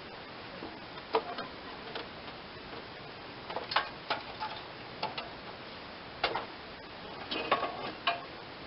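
A string of irregular sharp clicks and knocks as the lawn tractor's loose hood is lifted off and handled, with a cluster of knocks near the middle and another near the end.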